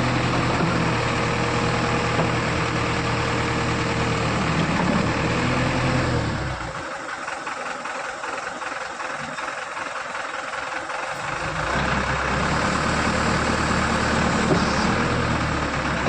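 JCB 3DX backhoe loader's diesel engine running steadily. For about five seconds in the middle its low rumble drops away, leaving a thinner, higher noise, before the full engine sound returns.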